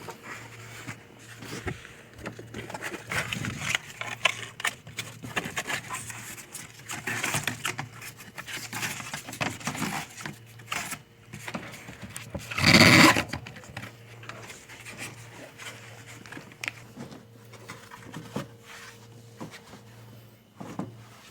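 Irregular clicks, knocks and scrapes of washing-machine parts being handled and fitted back in place. One louder, harsher noise lasts about half a second, about 13 seconds in.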